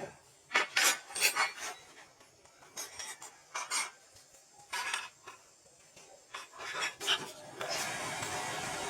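Short scraping strokes of a hand tool on wood, coming in uneven clusters with pauses between them. Near the end a steady hiss-like noise sets in and keeps going.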